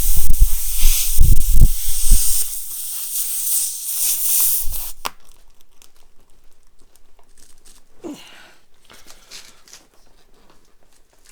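Air hissing hard out of a punctured car tyre through the reamed puncture, with a few low thumps in the first two seconds; the hiss stops about five seconds in. After that there are only faint scattered clicks and rubbing.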